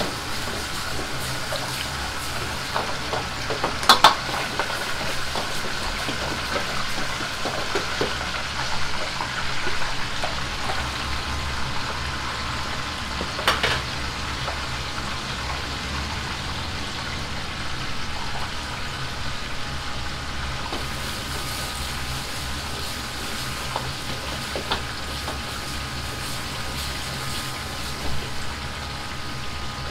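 Mapo tofu sizzling and bubbling in a wok over a gas wok burner, with a steady hum from the range, while a ladle stirs in starch slurry to thicken the sauce. Sharp clacks of the ladle on the wok come about four seconds in and again around thirteen seconds.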